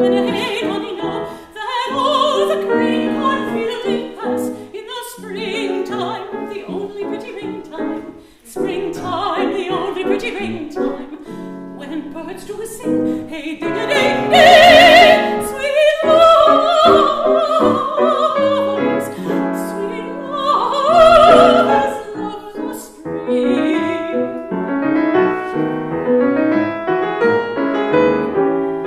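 Classical art song: a singer with piano accompaniment. The piano plays throughout, and the voice rises to loud, high held notes with wide vibrato about halfway through and again a few seconds later.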